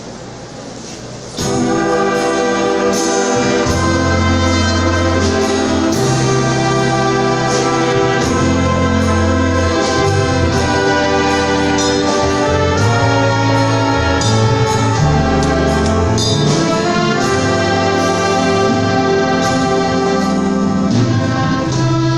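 Church brass band playing a hymn instrumentally, coming in suddenly about a second and a half in: brass melody over a moving bass line with drum and cymbal strikes.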